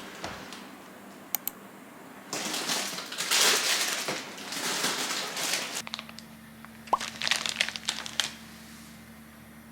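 Crinkling and rustling of packaging being handled, loudest in the middle. About six seconds in, a steady electric hum starts, with a few light clicks and taps over it.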